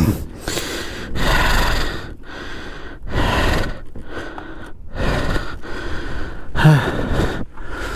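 A person breathing heavily and close to the microphone: a series of deep, audible breaths in and out, about one a second, with a short voiced grunt near the end.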